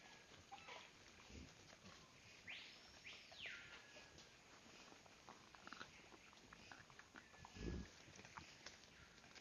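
Faint wildlife sounds: two short low grunts from a white-lipped peccary, about a second and a half in and near the end, and once a bird's whistle that rises and falls over about a second, with a few short chirps and light clicks between.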